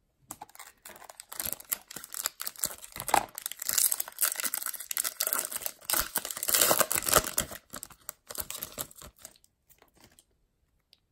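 Foil wrapper of a Topps Chrome baseball card pack being torn open and crinkled by hand. The crackling is dense and continuous, then thins to a few light crackles about nine seconds in.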